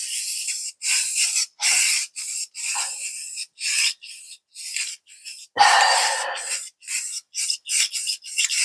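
Aerosol spray-paint can spraying in short hissing bursts, about one or two a second, with one longer spray a little past the middle.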